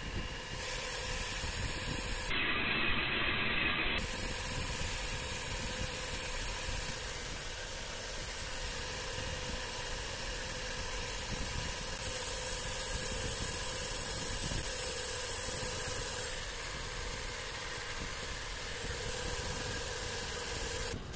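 Cylinder boring machine running steadily, its boring bar turning and cutting inside a cylinder bore of a Tata Ace Super engine block: an even mechanical hum with a hiss of cutting. This is slip boring, which opens the bore out to take a slip-fit liner.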